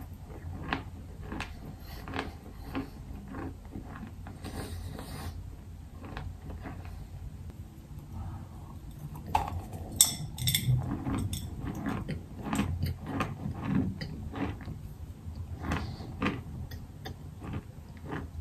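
Close-up chewing of a bar of clay chalk, with many small crunching crackles. A sharp bite about ten seconds in is followed by a run of louder crunches.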